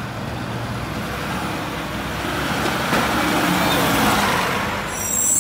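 Mack LR garbage truck driving slowly past, its diesel engine running; the sound grows louder as the truck comes alongside about three to four seconds in.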